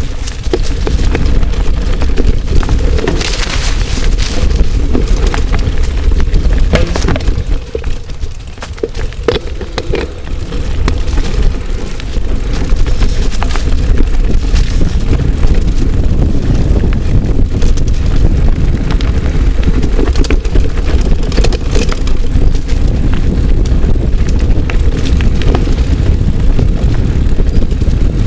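Mountain bike riding fast down a rough dirt singletrack: a steady low rumble of wind buffeting the microphone, with the rattle and many sharp knocks of the bike jolting over roots and bumps. It eases briefly around eight to ten seconds in.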